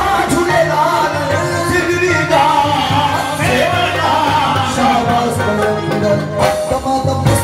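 Live qawwali: men's voices singing over a harmonium, with a hand drum keeping the beat, heard through a PA system in a large hall.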